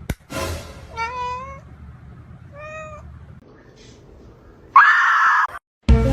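A cat meowing twice, the first meow wavering in pitch. Near the end comes a short, loud, harsh sound, then music starts.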